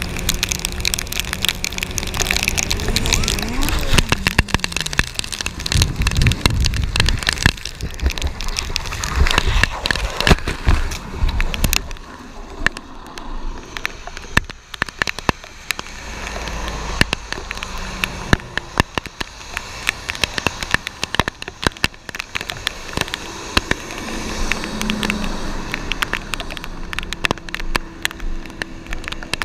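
Motorcycle engine running at speed in heavy rain, its note falling about three seconds in, followed by the crash: a few seconds of heavy low thumping and scraping as the bike goes down. After that, rain patters and crackles on the helmet camera, and a steady engine hum returns near the end.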